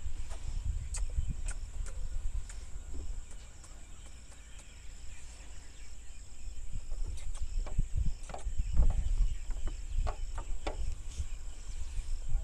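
Hooves of two Kajla sheep knocking and scraping on a vehicle's cargo floor as they are coaxed and helped down onto grass: scattered sharp knocks with low rumbling thumps, loudest about two-thirds of the way in. A steady high insect trill runs behind.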